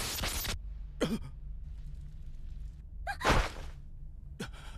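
Anime soundtrack with short vocal sounds, gasps or sighs: a brief one about a second in, a louder one about three seconds in, and another near the end, over a steady low hum. A loud burst of noise at the start cuts off after half a second.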